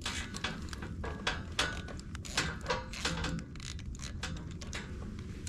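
Irregular metallic clicks and clinks of hand tools and parts, in the way of fitting a rebuilt carburetor back onto a small engine.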